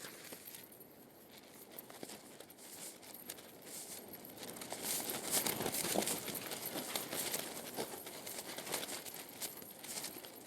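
Rain in a storm: a dense, crackling patter of drops that swells about halfway through and eases again.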